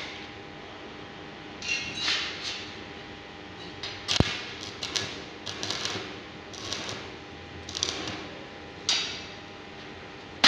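Stick (arc) welding: the electrode arc crackling and sputtering in short, irregular bursts as it is struck on the steel and short tack welds are laid. There is a sharp click about four seconds in, over a faint steady hum.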